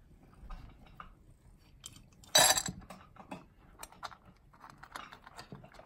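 Cat eating dry kibble from a stainless steel bowl: soft crunching and small scattered clicks against the metal, with one short, loud metallic clatter about two and a half seconds in.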